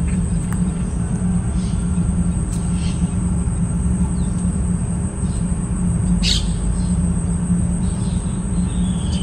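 Outdoor ambience: a steady high-pitched insect drone over a constant low hum, with a short bird chirp about six seconds in.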